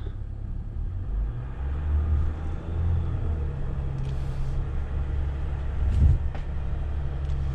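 Car driving slowly, a steady low rumble of engine and tyres, with a few short knocks near the end.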